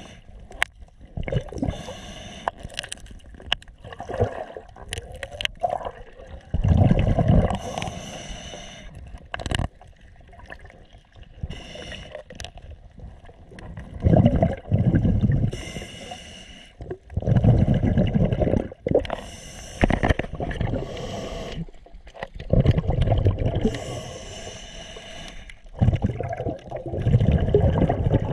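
Scuba diver breathing through a regulator underwater: long bubbling exhalations about every four to five seconds, each followed by a hissing inhalation. Scattered sharp clicks in the first few seconds.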